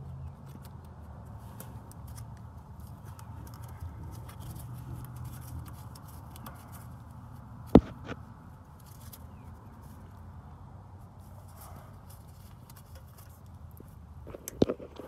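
Gloved hands handling wiring under the truck, with one sharp click about halfway through: the exhaust gas temperature sensor's electrical connector snapping home. A few knocks near the end.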